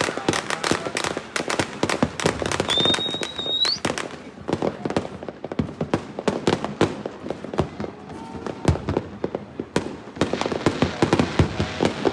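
Fireworks and firecrackers going off in a dense, irregular run of sharp pops and cracks, with a short whistle about three seconds in that rises at its end.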